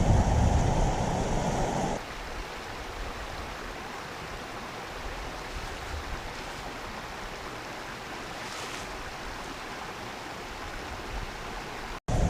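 Steady rushing of a river's flowing water. For the first two seconds it is buried under wind buffeting the microphone, which cuts off suddenly.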